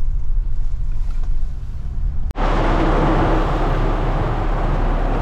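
Low rumble of the Scorpio N 4×4 driving on a rough mountain track. About two seconds in there is an abrupt cut, and then a loud, steady rush of water as the SUV fords a stream running over the track and gets washed by it.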